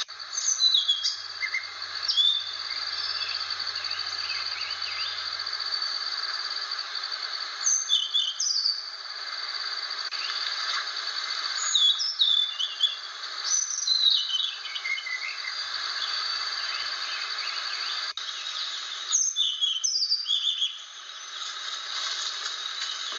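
Blue flycatcher (sikatan) singing: short phrases of clear, high whistled notes, several sliding downward, repeated every few seconds over a steady high hiss.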